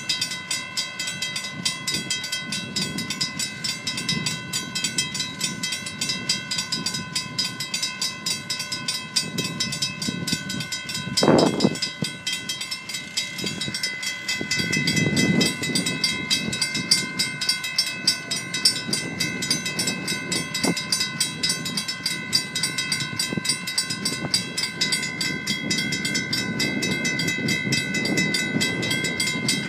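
Mechanical railroad crossing bells ringing continuously in rapid, even strokes over a low, varying rumble from the rail line. A single sharp thump stands out about eleven seconds in.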